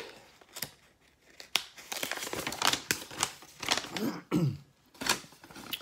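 A sheet of paper rustling and crinkling as it is handled and unfolded, in a run of short irregular rustles and clicks.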